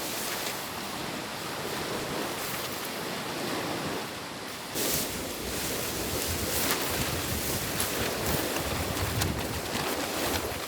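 Strong wind gusting over the microphone, with lake waves washing on the shore; a sharper gust about five seconds in, and more low rumble afterwards.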